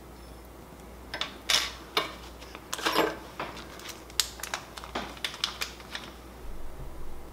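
An irregular run of sharp clicks and light knocks: hard parts being handled by hand. It starts about a second in and stops about six seconds in.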